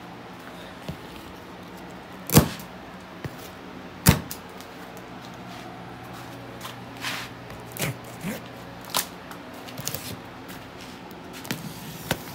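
Cardboard engine box, bound in plastic strapping and tape, being opened by hand: two loud sharp snaps about two seconds in, less than two seconds apart, then lighter clicks, scrapes and crinkles of cardboard and plastic.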